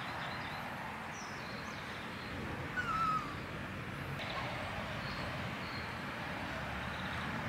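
Outdoor background noise, steady and even, with one short high chirp that falls slightly in pitch about three seconds in.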